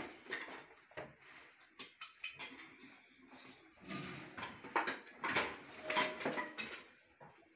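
Irregular knocks and metallic clinks of hand work on a kitchen cabinet: a cordless drill set down on a tiled floor and a laminated drawer front being handled and fitted, with no drill running.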